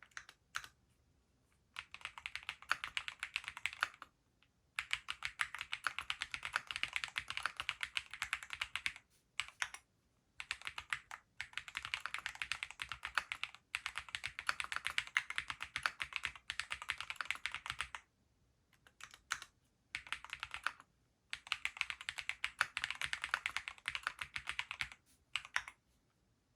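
Typing on a Graystudio Space65 III custom mechanical keyboard with Gateron Pure Berry linear switches: fast runs of keystrokes in bursts of a few seconds, with short pauses between them.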